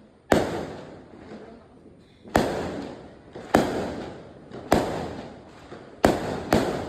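Fireworks exploding: six sharp bangs at irregular gaps of one to two seconds, the last two close together, each followed by a fading echo.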